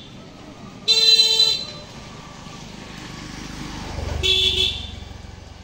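A vehicle horn tooting twice: a short toot about a second in and another about four seconds in. Between them comes the noise of a passing vehicle, which swells up to the second toot.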